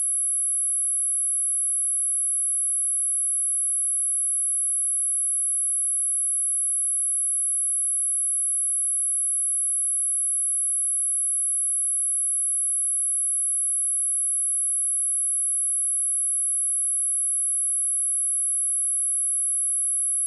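A single high-pitched test tone, a pure 10867 Hz sine wave, held steady without a break. It is played as a speaker test and to shake water and dust out of a speaker.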